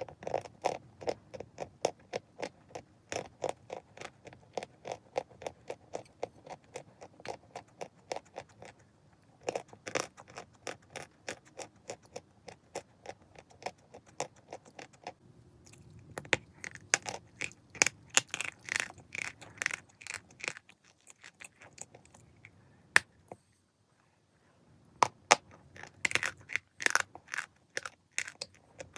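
Chalk being bitten and chewed, with a steady run of crisp crunches. There is a short pause about three-quarters of the way in, then the crunching resumes.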